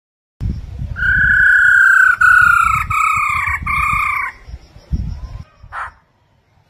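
Black-throated laughingthrush whistling four long, clear notes, each falling slightly in pitch, over a low rumble, then giving one short harsh call. The sound starts abruptly about half a second in.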